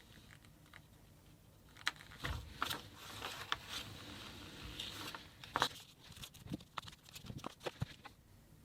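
Hands handling a small phone's packaging: a run of small clicks, taps and rustles, starting about two seconds in and stopping near the end.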